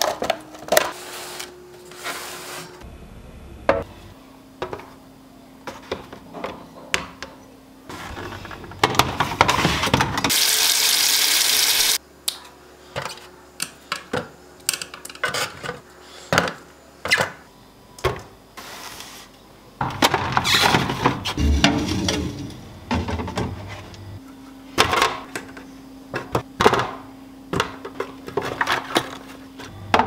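Food packages, cartons and produce being set down into clear plastic fridge storage bins: a string of light taps, knocks and plastic clatters, with a steady hiss lasting about two seconds near the middle.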